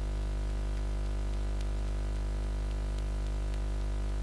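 Steady electrical mains hum and buzz, a low drone with a ladder of overtones over a faint hiss.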